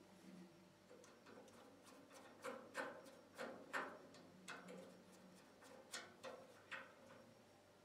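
Faint, irregular clicks and taps of small metal parts being handled and fitted, during reassembly of a gas stove's burner control valves.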